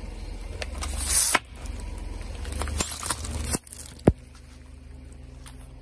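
A car tyre rolling over and crushing brittle objects, with crackling and snapping in two spells over the car's low rumble. The rumble stops about three and a half seconds in, and a single sharp pop follows just after.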